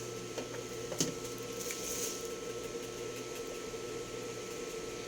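Steady background hum and hiss, with one sharp click about a second in and a few faint rustles of handling.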